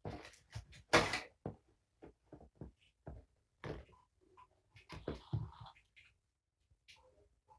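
Irregular clicks, taps and rustles of hands handling small plastic items and packaging. The loudest rustle comes about a second in, with another cluster about five seconds in.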